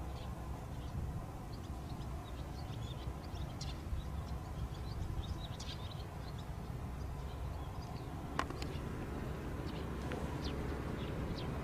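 Faint, scattered chirps of small birds over a steady low rumble, with a single sharp click about eight seconds in.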